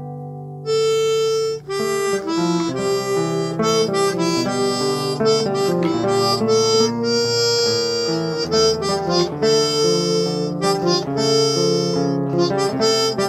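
Harmonica playing a melody over acoustic guitar accompaniment. The harmonica comes in about a second in, after the guitar's last chord.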